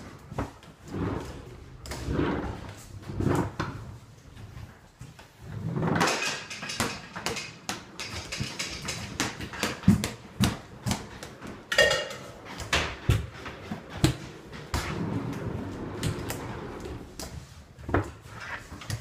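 Kitchen clatter: a string of knocks and clanks from cupboard doors, drawers and cookware being handled, with a few louder bangs.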